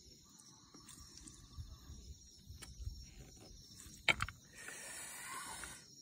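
Crickets trilling steadily, with a few sharp clinks of a spoon on a metal bowl and tray, the loudest about four seconds in, and a short rustling hiss near the end.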